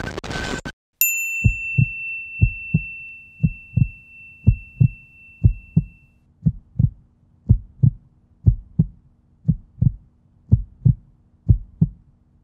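A brief rush of noise stops, then a single bright ding rings out and fades over several seconds. Under it begins a heartbeat sound effect: a double thump, lub-dub, repeating about once a second over a faint low hum.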